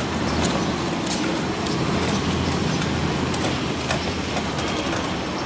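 Steady outdoor background din with a low rumble like road traffic, broken by scattered sharp clicks and knocks.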